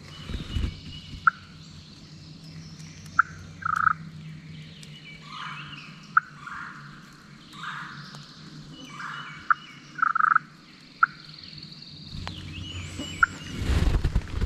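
Wild turkeys calling close by: gobbles mixed with short, sharp clucks or putts, repeated every second or two. A broad rustling or handling noise comes near the end.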